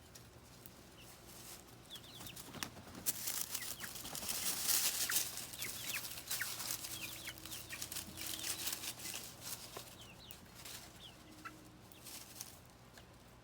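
Backyard chickens clucking, with many short high chirps and a few low drawn-out notes. A louder stretch of scratchy noise comes about three to six seconds in.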